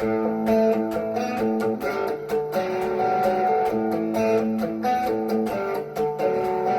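Electric guitar on a Peavey Vandenberg single-coil pickup, played through a Carl Martin Panama overdrive into a Blackstar HT5 amp, picking a fast riff of single notes and chords. The guitar's volume knob is rolled almost all the way down, so the overdrive cleans up to a mostly clean tone.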